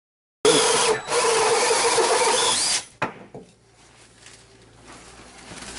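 Cordless drill boring a hole through the wooden floor plate of a wall, running at a steady whine for about two and a half seconds and then stopping. Faint handling sounds follow.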